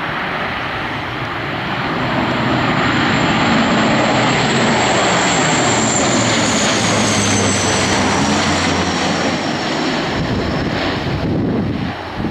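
Airliner on its landing approach passing close by: a loud, steady engine noise with a high whine that slowly falls in pitch as it goes past, fading near the end.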